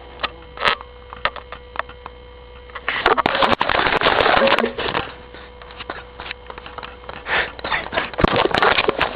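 A man snoring loudly: one long noisy snore of about two seconds starts about three seconds in, followed near the end by shorter, irregular ones. Scattered clicks and a low steady hum lie underneath.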